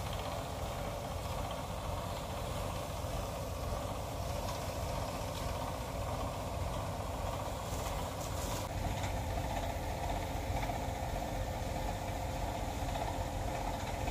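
Tractor engine running steadily, powering the sprayer's pump while a hose spray gun is in use. The sound changes abruptly about nine seconds in.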